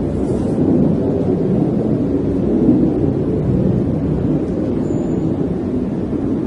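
A steady low rumbling drone of the kind reported as 'sky trumpets' or strange sounds in the sky, from a source nobody has confirmed. There is a faint short high whistle about five seconds in.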